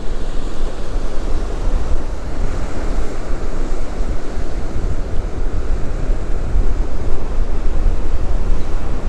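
Strong wind buffeting the microphone in a steady low rumble, with ocean surf breaking underneath.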